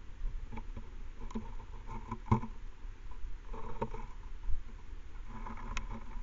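A cat brushing and nosing against a trail camera right at its microphone: irregular scuffs, rustles and taps on the casing, with a sharper knock a little over two seconds in and another near the end.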